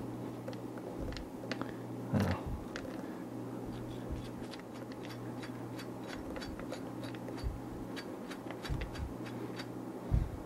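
Wood pellets rattling in a hand-shaken stainless steel rod basket, with scattered sharp clicks as pellets drop through the openings into a plastic tub below. A louder knock comes about two seconds in, over a steady low hum.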